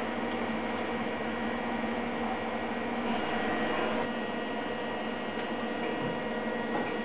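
Steady electrical hum with a hiss from a welding setup. About three seconds in, a welding arc is struck and runs for about a second, with a sharp click as it starts and a fainter one as it stops.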